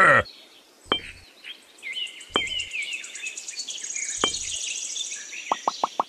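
Miniature clay bricks being set down one at a time, giving three soft knocks about two seconds apart over steady birdsong. A loud brief burst comes right at the start, and near the end a quick, even run of plopping clicks begins, about five a second.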